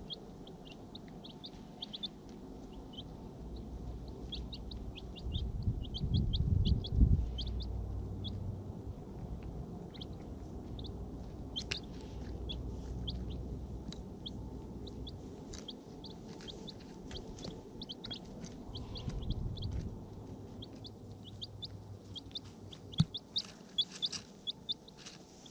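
Rhode Island Red chicks, about two weeks old, peeping in many short, high cheeps. A low rumble comes in twice, about five to eight seconds in and again around nineteen seconds, and a few sharp clicks sound near the end.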